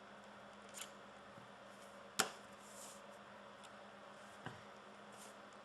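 A few light plastic clicks and taps from handling a BlackBerry Torch 9800 smartphone with its battery out, the loudest a single sharp click about two seconds in, with faint scrapes between.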